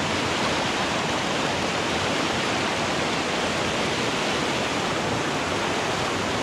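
Mountain stream rushing over rocks through whitewater rapids, a steady, even rush of water.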